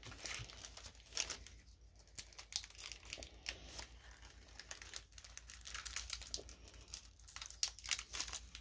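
Foil Pokémon booster pack wrappers crinkling and crackling as they are handled, in irregular bursts.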